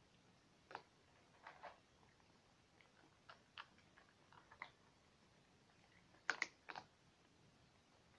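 Several cats eating from a bowl: faint, irregular small clicks of chewing and of the bowl being nudged, with a louder cluster of clicks about six seconds in.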